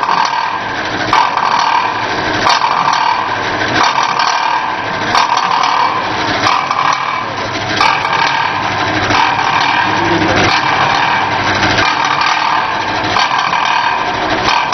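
Automatic teabag packaging machine running, its mechanism going through a regular cycle with a sharp knock about every 1.3 seconds over a steady mechanical whir.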